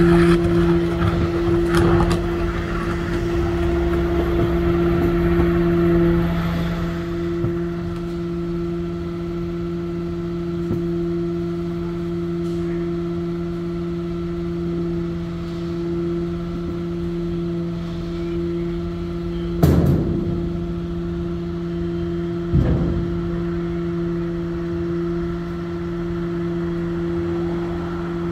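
Idling garbage truck with a steady, even hum, louder for the first few seconds. Two sharp bangs about 20 and 23 seconds in.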